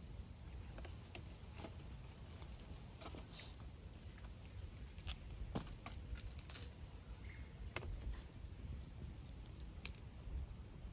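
Campfire burning in a fire stand, crackling with irregular sharp pops and snaps.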